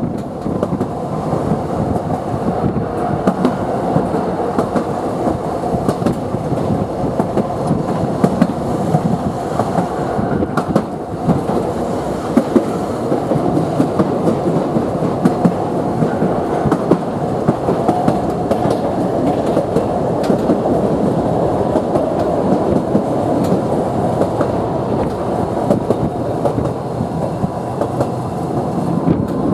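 Toden Arakawa Line tram running along the track, heard from inside the car: a steady rumble of wheels on rail with repeated clicking and clatter over the track, and a faint steady hum.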